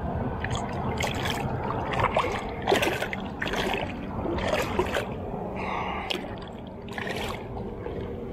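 Small tarpon, about 3–4 pounds, splashing at the surface beside a small boat's hull as it is led in on the line: a run of short splashes, about one a second, over steady lapping water.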